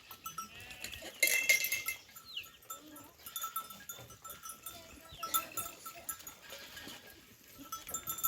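Goats or sheep of a village flock: one loud bleat about a second in, then fainter calls.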